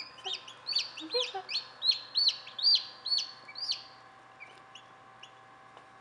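Newly hatched chicks peeping loudly: a quick run of high, arched peeps through the first three seconds or so, then fewer and fainter peeps, over a faint steady hum.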